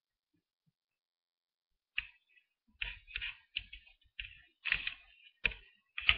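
Taps on a computer keyboard, quiet at first and then about ten sharp, uneven key taps and clicks, two or three a second, from about two seconds in.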